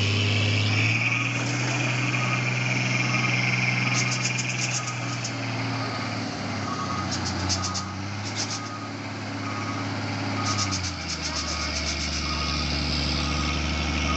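Loaded dump truck's diesel engine running hard on a steep uphill climb, a steady low drone whose pitch drops noticeably about eleven seconds in. A faint short beep repeats roughly once a second.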